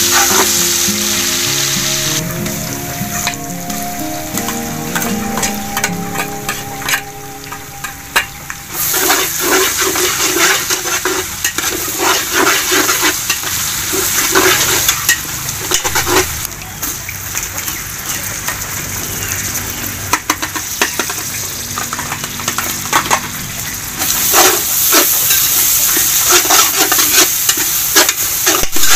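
Meat and spices frying and sizzling in a pan, stirred with repeated scraping strokes of a spatula or ladle. Background music fades out about eight seconds in, after which the sizzle and stirring carry on.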